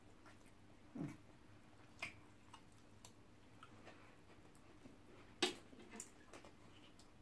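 Quiet eating sounds: scattered mouth smacks and small clicks of chewing, the loudest a sharp click about five and a half seconds in. A short low sound falls in pitch about a second in.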